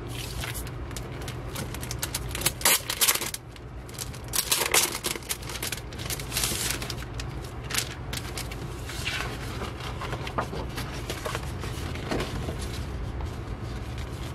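Large glossy paper posters rustling and sliding against each other as they are handled and laid out by hand, with irregular crinkles and a few sharper crackles, over a low steady hum.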